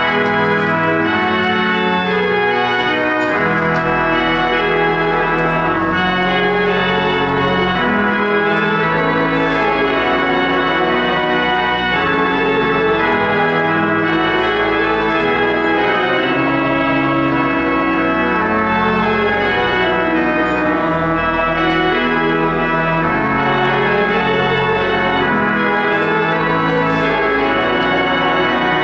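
Church pipe organ playing slow sustained chords that change about once a second, steady and full throughout.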